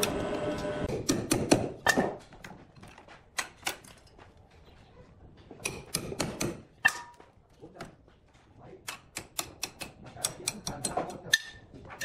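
Hammer striking a steel pry bar against the metal anti-split staples in the end of a large mahogany log: sharp metal-on-metal taps in quick clusters, some with a brief metallic ring, as the staples are worked loose.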